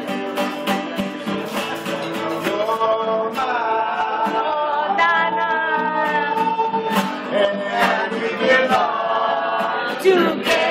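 Live song: an acoustic guitar strummed steadily under singing voices holding long, gliding notes.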